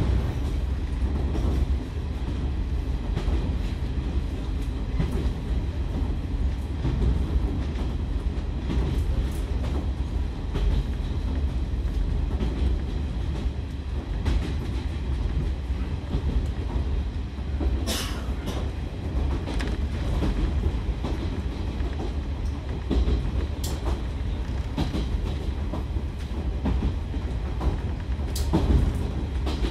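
Running noise of a KiHa 147 diesel railcar heard from inside the car: a steady low rumble of engine and wheels on the track, with a few sharp clicks of the wheels over rail joints, the strongest about 18 seconds in.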